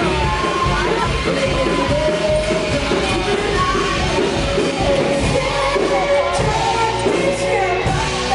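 Rock-style music with a singing voice over a steady beat.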